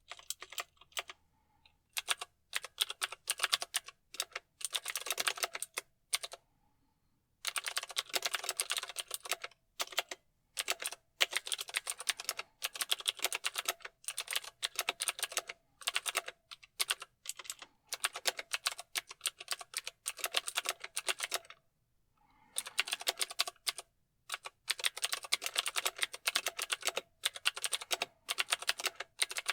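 Mechanical keyboard being typed on: quick, continuous runs of key clicks, broken by short pauses about a quarter of the way in and again about three quarters through.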